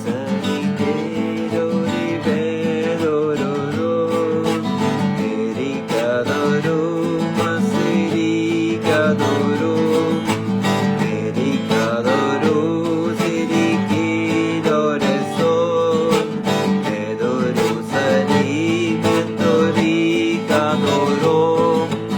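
Background music led by strummed acoustic guitar over steady held low notes.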